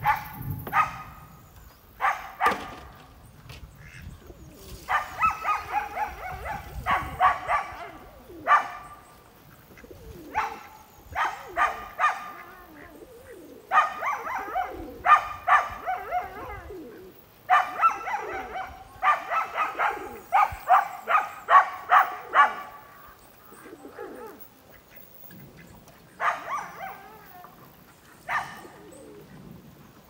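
Dog barking in repeated bouts of quick barks, with short pauses between the bouts.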